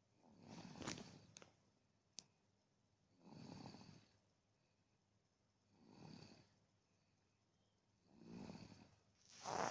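A baby snoring softly, one snoring breath about every two and a half seconds.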